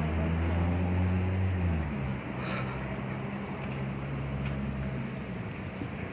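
Street traffic, dominated by the low, steady hum of a nearby motor vehicle's engine, which drops in pitch about two seconds in and fades out about five seconds in.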